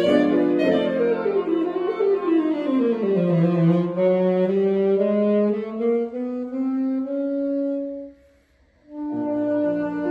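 Saxophone playing a classical solo. It plays a quick downward run, then long held notes that climb step by step. After a short breath gap about eight seconds in, it starts again.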